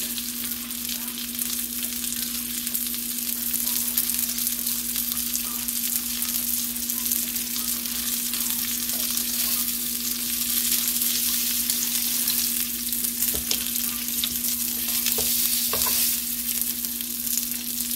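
Lamb chops sizzling and crackling in butter in a nonstick frying pan, with a steady low hum underneath. A couple of light knocks of the metal tongs against the pan as the chops are turned near the end.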